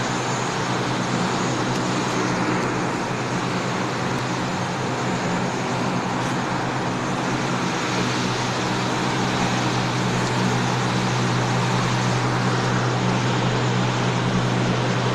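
Snack food extruder production line running: a steady low motor hum under an even whir of machinery, unchanging.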